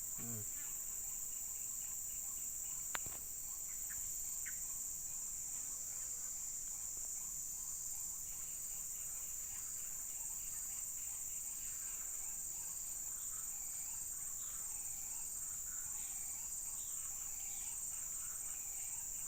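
Steady high-pitched insect chorus, crickets or cicadas, droning without a break, with one sharp click about three seconds in and faint short chirps in the background later on.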